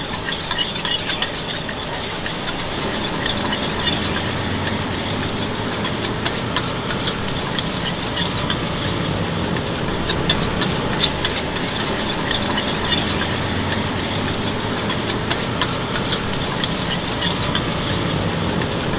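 Metal spatula scraping and clinking against a steel wok as fried rice is stir-fried, over a steady sizzle and the hiss of the gas burner beneath.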